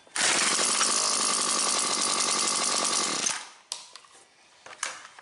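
Husqvarna 325P4 pole pruner's small two-stroke engine runs roughly for about three seconds, missing badly, then cuts out, followed by a few faint clicks. The miss is intermittent spark, caused by a spark plug wire whose insulation has been rubbed through against the flywheel.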